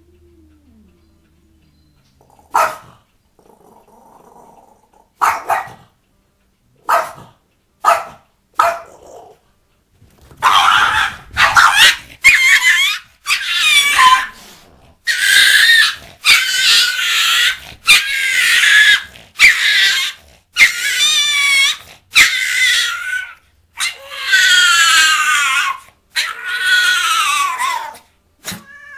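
Dogs barking and growling: a few short, sharp barks spaced a second or two apart, then from about ten seconds in a run of longer, louder barks and snarls, about one a second.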